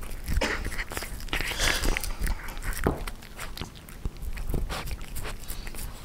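A Russian Blue cat gnawing and chewing on a pork rib: irregular wet crunches and clicks of teeth on meat and bone.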